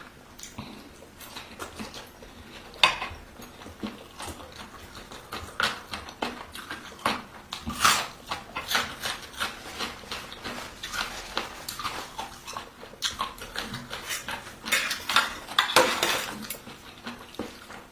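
Close-miked eating: a spoon clinking irregularly against a bowl, mixed with chewing mouth sounds.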